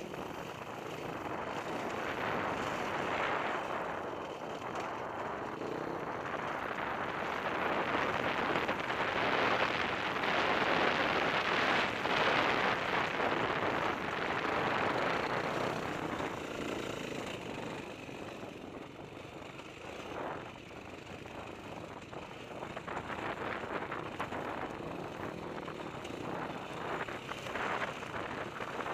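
Dirt bike engine running under changing throttle while climbing bare sandstone, heard close up from a camera mounted on the bike. It is loudest through the middle and turns rougher and choppier in the last third.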